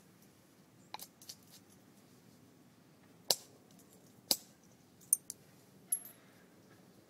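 Obsidian being knapped with a copper bopper: sharp glassy clicks as the tool strikes the stone's edge and flakes snap off, about seven of them at uneven intervals, one with a brief high ring.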